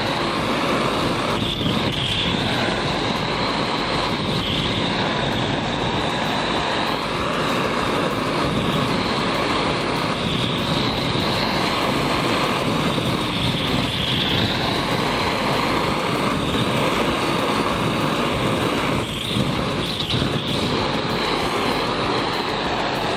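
Handheld kitchen blowtorch running with a steady hiss, caramelising the sugar on a creme brulee topping.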